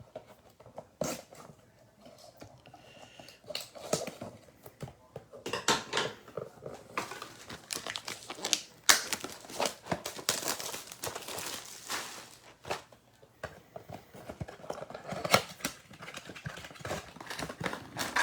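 Foil trading-card pack wrappers crinkling and tearing open, a run of irregular crackles and short rips as packs are pulled from the box and opened.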